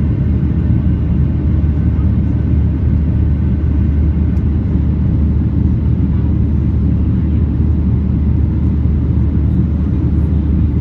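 Jet airliner cabin noise heard from a window seat: a steady, deep rumble of the engines and rushing air during the climb after takeoff.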